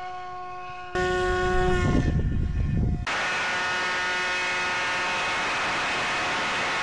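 Model airplane's motor and propeller running at full throttle, a steady whine with several tones; about a second in a loud rush of noise joins it for two seconds. About three seconds in it cuts to the sound heard on board the plane in flight: a thinner steady motor whine under wind hiss.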